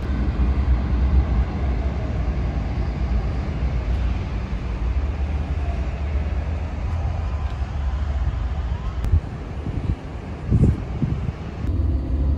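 Wind buffeting a phone microphone outdoors, a deep uneven rumble that swells once near the end, with an abrupt change in the sound where one shot cuts to the next.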